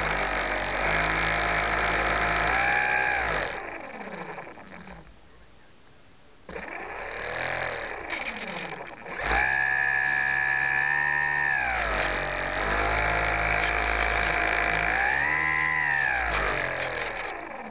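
Electric motor and propeller of an Ares Gamma Pro RC floatplane, heard up close from a camera mounted on the plane, whining at changing throttle as it taxis on the water. It cuts out after about three seconds, spins back up a few seconds later, runs at a high pitch, settles lower, rises briefly again and winds down near the end.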